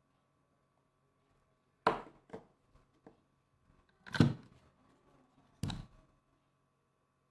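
Handling noise: a handful of sharp clicks and knocks, the loudest about four seconds in.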